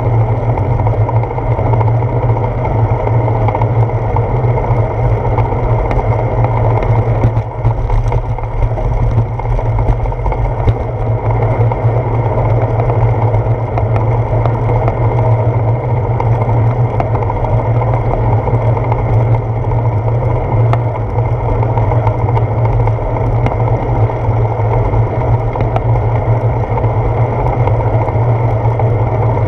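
Wind rushing over a handlebar-mounted GoPro Hero 4's microphone on a moving bicycle: a loud, steady, deep rumble.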